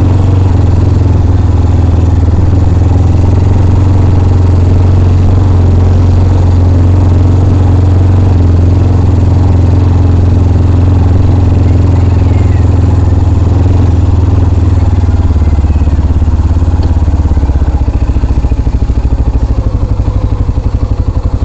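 250cc motorcycle engine running steadily under way. Near the end it drops to a slower, pulsing idle-like throb as the bike slows.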